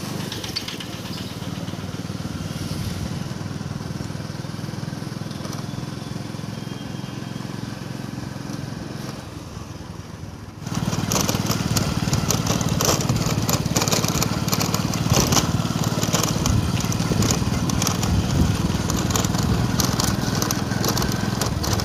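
Motorcycle engine running steadily as the bike is ridden, heard from the bike itself. About ten seconds in the sound suddenly gets louder and rougher, with a dense crackling noise over the engine.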